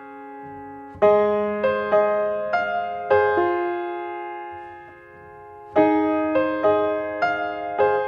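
Slow solo piano music: notes and chords struck and left to ring and fade, in two phrases, the first starting about a second in and the second near the six-second mark.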